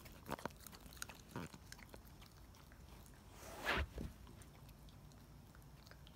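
Boxer puppy biting and chewing, with a few soft clicks of teeth in the first second and a half. A short, louder noisy burst comes about three and a half seconds in.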